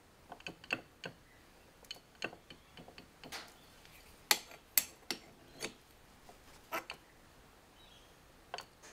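Irregular light metallic clicks and taps as a parting-off tool is squared up and clamped in a lathe's quick-change tool post with a spanner, the loudest pair of knocks about four and a half seconds in.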